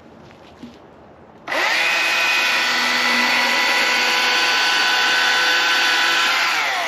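Chainsaw running at full throttle, cutting into a log. It starts suddenly about a second and a half in, holds a steady pitch, dips slightly in pitch just before it cuts off near the end.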